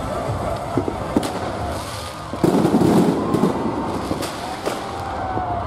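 Fireworks display going off overhead: a string of sharp bangs and crackles, densest and loudest about two and a half seconds in.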